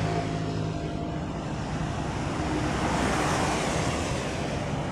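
A motor vehicle passing close by: a steady engine hum at first, then engine and road noise swelling to a peak about three seconds in and easing off.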